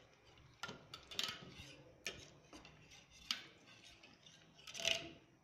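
Metal hand whisk stirring curd in a steel pot, its wires tapping and scraping against the pot in irregular clicks, with a slightly longer, louder scrape near the end.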